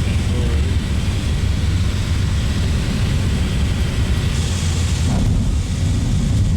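Steady drone of a small passenger plane's engines heard from inside the cabin in flight.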